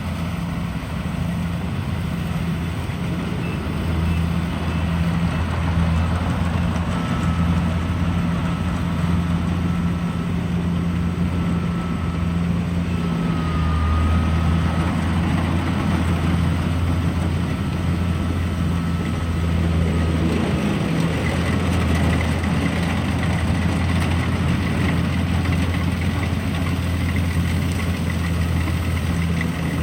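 Rice harvesting machine's engine running steadily with a low, even hum and machinery noise over it.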